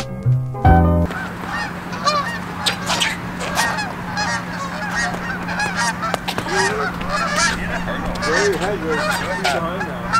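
A flock of geese honking, many overlapping calls one after another, over a steady low hum. Background music cuts off about a second in.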